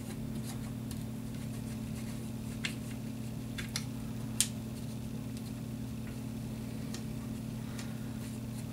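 A steady low hum, with a few light clicks and taps from handling the Glock 19's polymer frame while a patch is wiped through it; the sharpest click comes about four and a half seconds in.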